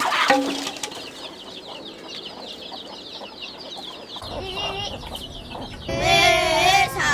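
Birds chirping rapidly and without a break in short, high repeated notes. About six seconds in, a child starts singing over them.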